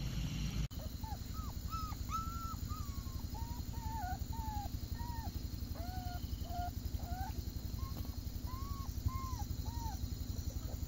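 Several puppies whimpering and whining: many short, high calls, each rising then falling, overlapping one another. A low, rapidly pulsing hum runs underneath.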